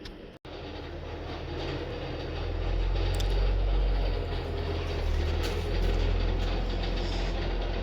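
Heritage railway train: a heavy low rumble from a diesel locomotive with mechanical rattling and clicking, growing louder about two seconds in.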